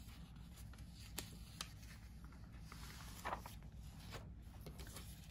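A page of a paper catalogue being turned by hand: faint handling clicks, then a brief paper swish about three seconds in, over a low steady room hum.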